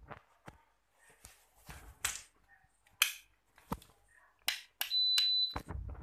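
Clicks, knocks and rustles of handling, then a single high electronic beep about five seconds in, held for about half a second, like a household appliance answering a button press or remote.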